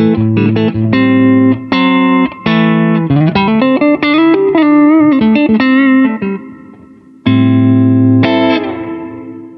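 Valkenburg USA T-style electric guitar with its pickup selector in position 3, played through an amp. It plays rhythmic chord stabs, then a single-note lick with string bends and vibrato, and ends on two chords that ring and fade away.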